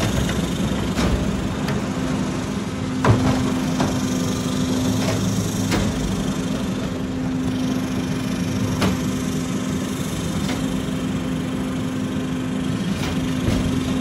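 Rear-load garbage truck's engine running with a steady hum while a recycling bin is emptied into the hopper. Scattered metallic clanks and knocks come from the bin and the packer, the loudest about three seconds in.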